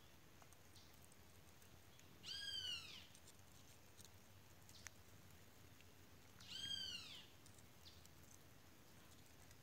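An animal call, given twice about four seconds apart: each a short, arched cry that rises and falls in pitch, over a faint outdoor background.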